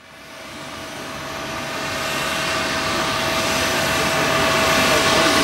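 Twin-engine jet airliner's engines at full takeoff thrust on the takeoff roll: a broad rushing roar with a steady whine through it, growing steadily louder.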